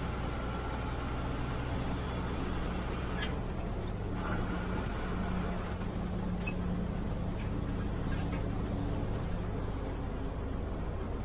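Bus diesel engine running, heard from inside the front cabin: a steady low hum whose pitch shifts about a third of the way in, with a couple of short clicks or rattles.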